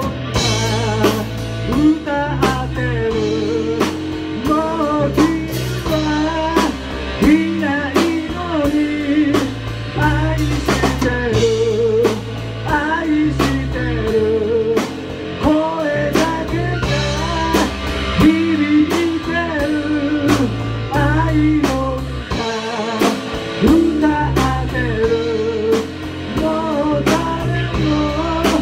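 Live rock band playing: a man singing over electric guitar, electric bass guitar and a drum kit, with a steady drum beat throughout.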